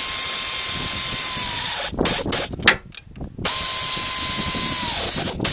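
Pneumatic air ratchet running bolts in with two long bursts: a steady whine over loud air hiss that dips in pitch as each bolt snugs up, with short blips of the trigger between and near the end.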